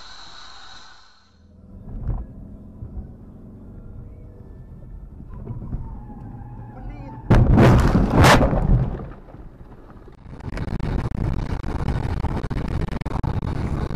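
Dashcam recording from a car on the road: low engine and road noise, broken about seven seconds in by a sudden, very loud impact lasting about a second, typical of a collision. From about ten seconds on there is steady road noise.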